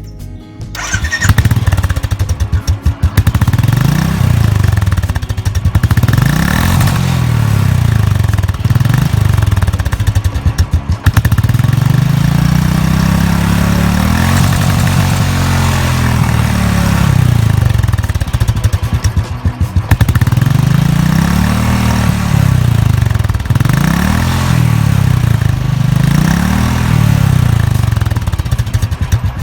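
Royal Enfield Bullet single-cylinder motorcycle engine revved through its exhaust: the throttle is opened and let fall back again and again, with one longer, slower rev in the middle. The engine comes in about a second in.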